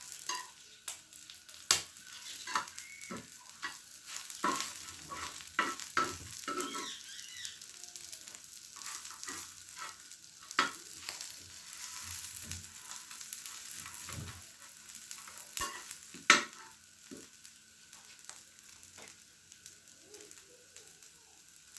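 Food sizzling as it fries in a pan on a stove, with scrapes and sharp clicks of a utensil against the pan; the two loudest clicks come about 2 s and 16 s in.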